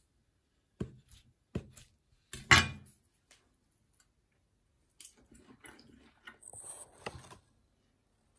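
Chef's knife slicing through a cooked steak and knocking on an end-grain wooden cutting board. Three separate knocks in the first three seconds, the loudest about two and a half seconds in, then a run of softer knife-and-fork taps and scrapes on the board near the end.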